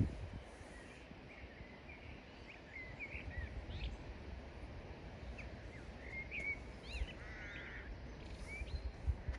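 Small birds chirping and twittering in short calls over a low, gusty rumble, with a thump at the start and another at the end.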